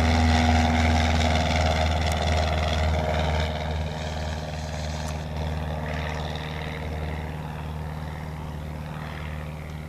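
1972 Cessna 150L's propeller and four-cylinder air-cooled engine droning steadily, fading gradually as the plane climbs away.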